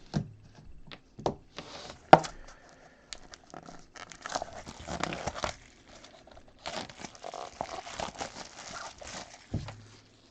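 Shrink-wrap plastic being torn and crinkled off a sealed trading card box, in irregular crackling bursts with scattered clicks and a sharp knock about two seconds in.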